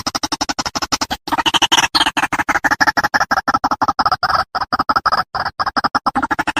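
White-breasted waterhen (ruak-ruak) calling: a rapid run of short, harsh pulses, about seven a second, with a brief break about a second in.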